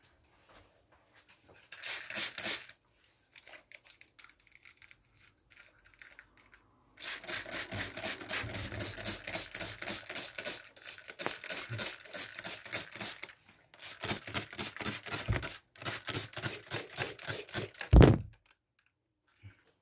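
Hand trigger spray bottle pumped rapidly again and again, a quick run of short hissing spritzes misting a reptile terrarium to raise the humidity, with one short spray about two seconds in and a brief pause partway through. A loud thump near the end.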